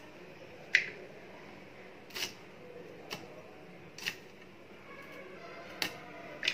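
Banana-flower florets being chopped on an aruvamanai, a curved blade fixed on a wooden base: about six short, crisp cuts, spaced roughly a second apart and unevenly.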